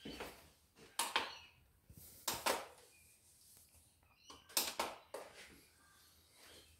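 Handling clatter: short clacks and knocks of a knife and a BESS edge sharpness tester being handled and set up on a wooden table, in three bursts about a second in, a little past two seconds and near the end, the last a double knock.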